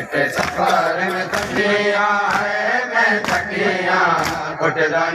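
Group of men chanting a Seraiki noha in unison, with sharp claps of hands striking chests (matam) about once a second, keeping the beat.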